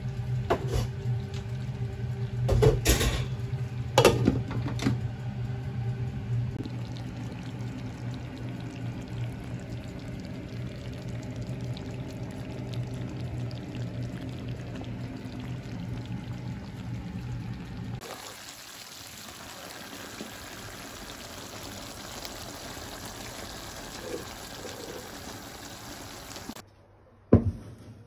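Cooking noise from a frying pan of spinach leaves on a gas hob, over a steady low hum. Two loud knocks come a couple of seconds in. After that the hum gives way to an even hiss, like sizzling or simmering in the pan, and a sharp click sounds near the end.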